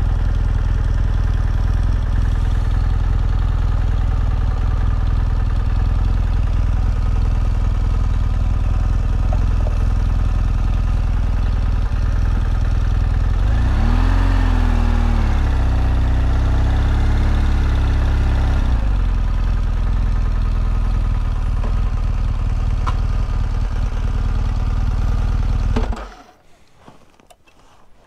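Adventure motorcycle engine running steadily at low speed on a dirt track, its pitch rising and wavering for about five seconds around the middle, then the sound cuts off abruptly near the end.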